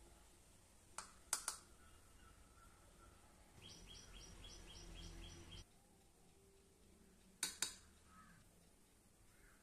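A steel spoon clinks sharply against the bowl a few times: three quick clinks about a second in and two more near the end, as spice powders are added to gram flour. In the middle, a bird chirps rapidly for about two seconds, about four chirps a second.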